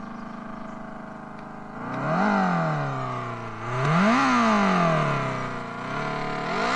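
An Odyssey Evoqis electric bike's sound system plays a synthetic motorcycle engine sound. It idles steadily, then revs up and back down twice, about two and four seconds in.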